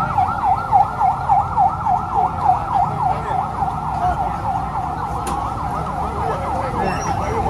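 Emergency vehicle siren on a fast yelp, its tone sweeping up and down about three or four times a second, over a steady low rumble.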